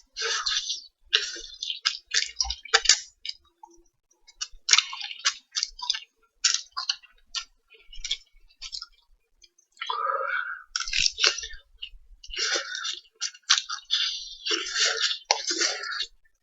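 A person eating instant ramen noodles close to the microphone: irregular wet slurps, chewing and lip smacks in short bursts with small clicks between them.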